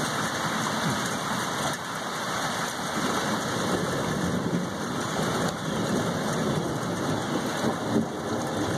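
Steady rain from a thunderstorm falling on and around the house, an even hiss with no single drops standing out.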